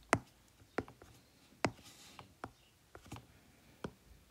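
Stylus tip tapping and clicking on an iPad's glass screen while handwriting: a string of about eight to ten sharp, irregular taps, the loudest near the start.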